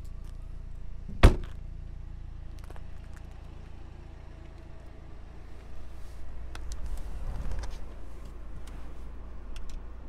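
A single heavy thunk about a second in, the rear hatch of a Toyota GR Supra being shut. Later come scattered clicks and low handling rumble as the car's interior is approached through the open driver's door.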